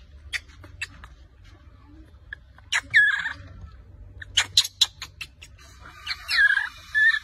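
Baby monkey giving high-pitched squealing cries that fall in pitch: one about three seconds in and two more near the end. Sharp clicks come between them.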